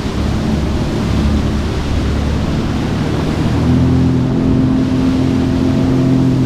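Sea-Doo personal watercraft engine running steadily under way, speeding up about three and a half seconds in.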